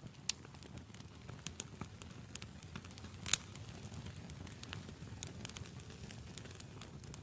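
Campfire wood burning, crackling with irregular snaps and pops over a low hiss of flame, with one louder pop a little over three seconds in.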